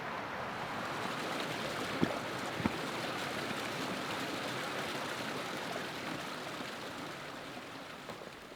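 Small mountain river flowing over rocks, a steady rush of water, with two sharp knocks about two seconds in; the water fades near the end.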